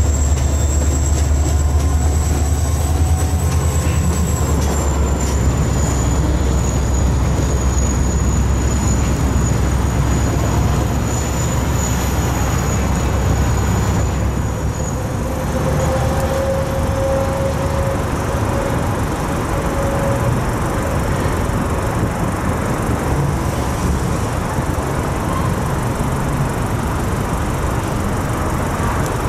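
Slow-moving CSX freight train: diesel locomotive rumble and rolling hopper and tank cars, with a steady high-pitched wheel squeal that stops about halfway through. A fainter, lower squeal comes in briefly after it, and the rumble continues at a slightly lower level.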